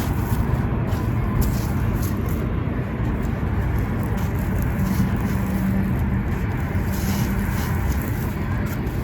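Gritty sand-cement crunching and crumbling continuously: a deep, dense crunch with scattered sharper crackles.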